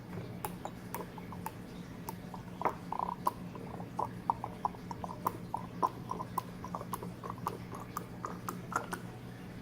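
Fractionated coconut oil pouring from its bottle into a small glass roller bottle: a run of small, irregular liquid clicks and glugs, several a second, over a low steady hum.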